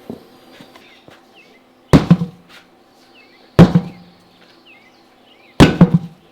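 Three heavy sledgehammer blows about two seconds apart, each a sharp thud, striking the sidewall of a deflated backhoe tire to break the bead loose from the rim.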